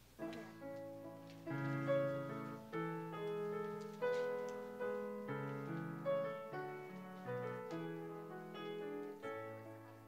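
Piano playing a slow piece of music as the postlude closing the service: chords and melody notes struck about every half second, each ringing and fading.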